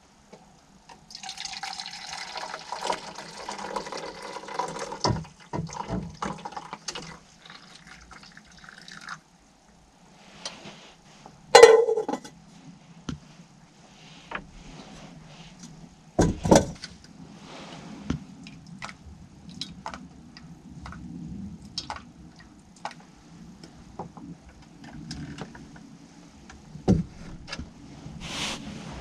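Liquid being poured for about eight seconds, cutting off abruptly, followed by scattered knocks and clicks of gear being handled, the loudest about halfway in.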